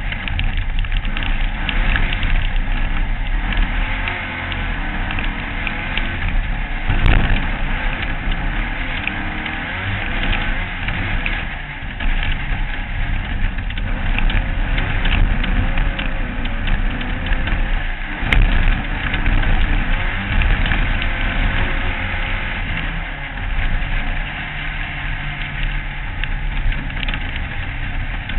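Off-road race car's engine running hard at racing speed on a dirt track, heard from a camera mounted on the car, under a constant rough rush of noise. The engine note shifts up and down, and there are a couple of sharp knocks, about 7 and 18 seconds in.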